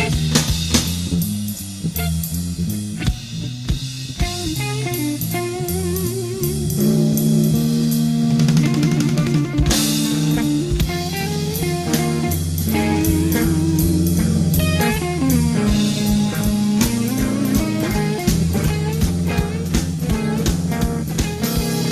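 Instrumental jam: an electric bass plays fast melodic lines, with trilled, wavering notes in its upper register, over a drum kit groove with cymbal crashes.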